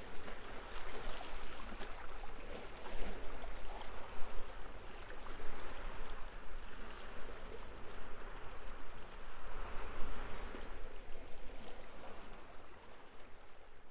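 Water rushing and trickling, a steady noise with small splashy clicks that swells and ebbs, fading out near the end.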